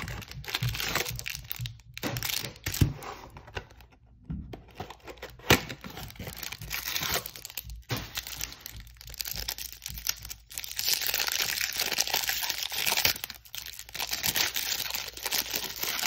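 Clear plastic wrapper on a stack of baseball cards being torn and crinkled by hand, with scattered sharp crackles and a denser run of crinkling from about ten seconds in.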